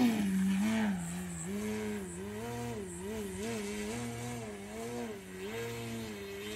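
Electric T-Motor AM670 motor and 18x8 carbon propeller of a 67-inch Extra 260 RC aerobatic plane in flight. The pitch rises and falls again and again with the throttle. It is loudest at the start, as the plane leaves the ground, and quieter from about a second in.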